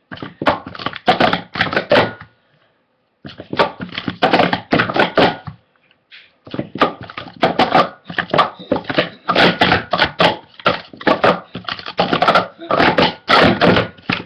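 Plastic sport-stacking cups clattering rapidly as they are stacked up and down on a stacking mat: quick runs of clicks and clacks, with short breaks about two and a half and six seconds in.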